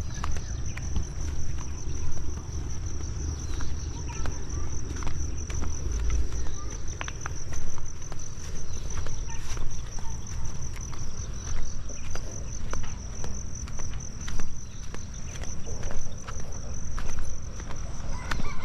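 Steady high-pitched insect chorus, a continuous shrill trill. Underneath it runs a fluctuating low rumble, with scattered small clicks and knocks.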